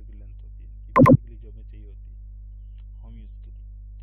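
A quick burst of two or three computer mouse clicks about a second in, loud and close to the microphone, over a steady low electrical hum.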